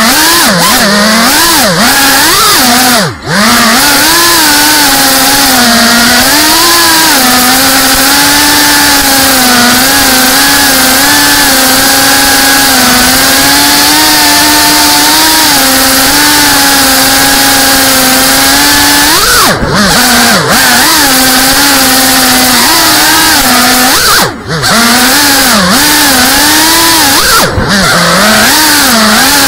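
FPV quadcopter's brushless motors and propellers buzzing, loud as picked up on board the quad, the pitch wavering up and down with the throttle. Several times the buzz briefly drops and falls in pitch, then comes back. The quad is flying on an unstable PID tune.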